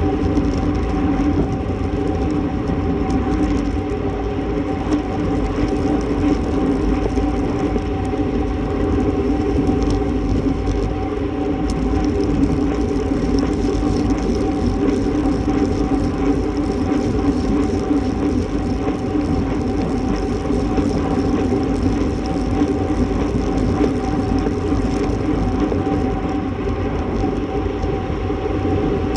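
Steady rush of wind on a bike-mounted camera's microphone, mixed with tyre and road noise from a road bike riding at about 25 mph, with a steady hum under it.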